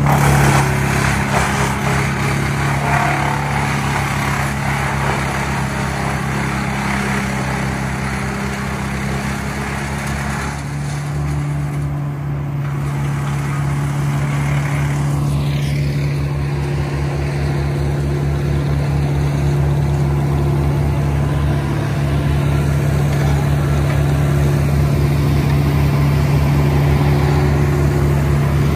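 A wood chipper's engine runs steadily at constant speed. A rougher, noisier layer sits over the engine for about the first ten seconds, then stops.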